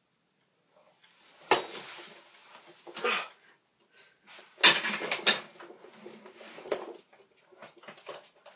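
A person struggling on a weight bench under a loaded barbell: a sharp knock with a deep thud about a second and a half in, then irregular bursts of rustling and clatter, loudest around five seconds in, and scattered small clicks.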